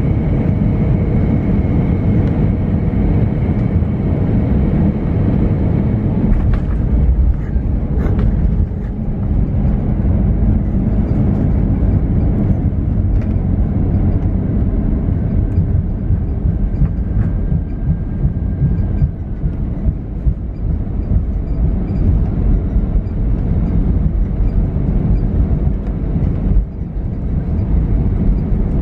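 Cabin noise of an Airbus A320 landing and rolling out on the runway: a loud, steady rumble of wheels and engines, with a sharp knock about eight seconds in.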